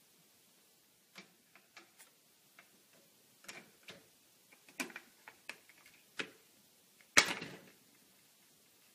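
Plastic pet-food can lid and dishwasher wire rack clicking and tapping irregularly as a kitten paws and bites at the lid, ending about seven seconds in with a louder, brief clatter.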